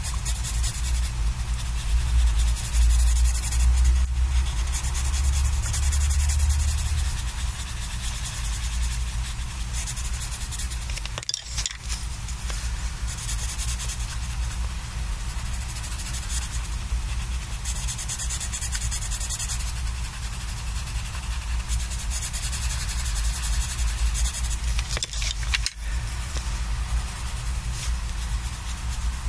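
Coloured pencil rubbing back and forth on sketchbook paper as a small area is shaded in, with a low rumble underneath. The scratching breaks off briefly twice, about a third of the way in and near the end.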